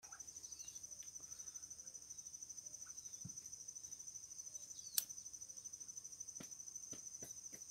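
Crickets trilling, a steady high-pitched trill that pulses about ten times a second. There is a single sharp click about five seconds in and a few faint knocks near the end.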